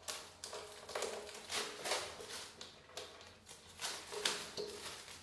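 Utility knife slitting the shrink-wrap and cardboard of a flat-pack box. It makes a series of short, uneven scratchy cutting strokes, about two a second.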